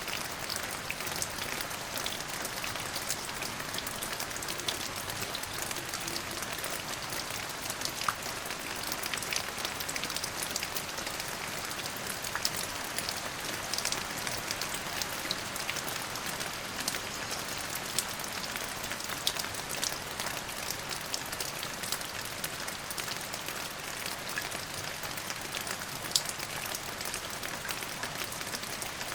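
Steady rain falling on a surface, a continuous hiss dotted with the sharp ticks of individual drops.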